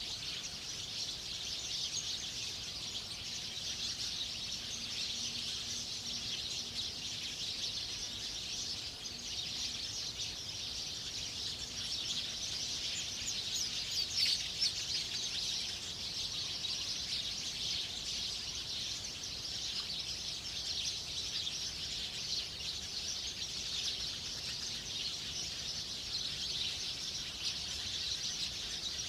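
Outdoor chorus of many small birds chirping and twittering in a steady, dense high-pitched stream, a little louder about halfway through.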